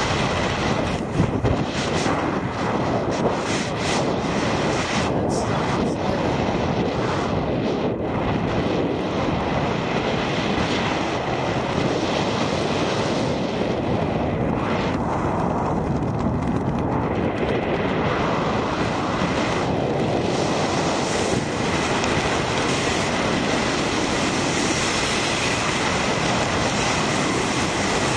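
Steady rush of wind over the microphone of a camera carried through the air under an open parachute canopy during the descent.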